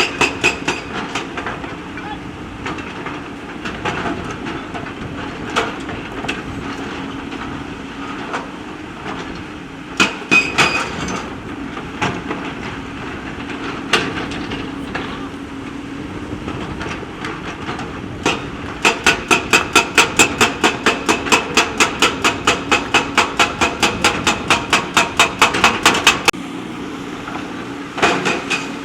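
JCB backhoe loader's diesel engine running steadily, with scattered sharp knocks of stone or steel. About two-thirds of the way in, a fast, even run of sharp strikes of about five a second lasts some eight seconds, then stops.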